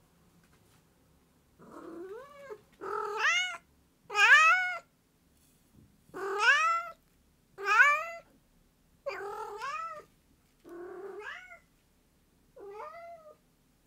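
Domestic cat meowing over and over, about eight loud meows each bending up and then down in pitch, roughly one every second and a half, the last few quieter.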